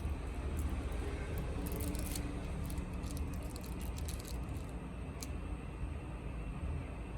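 Faint light clicks and rattles of small parts and tools being handled during a phone repair, bunched in the middle, over a steady low background rumble.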